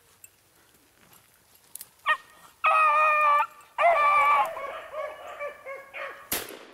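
Beagle hounds baying: a short yelp, then two long drawn-out bawls about three seconds in, trailing off into quieter yips. A single sharp crack sounds near the end.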